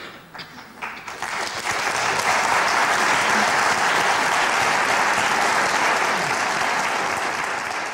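Audience applauding: a few scattered claps that swell within about two seconds into steady, full applause.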